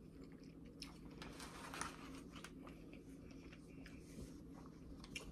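Faint eating sounds: quiet chewing and a few small utensil clicks against a plastic bowl, over a low steady hum.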